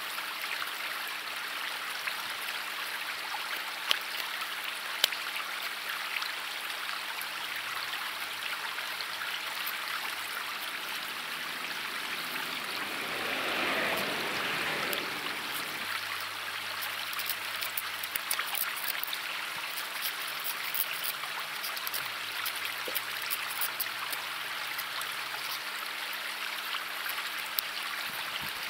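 River water flowing over rocks: a steady rushing hiss that grows briefly louder about halfway through. Two sharp clicks stand out about four and five seconds in.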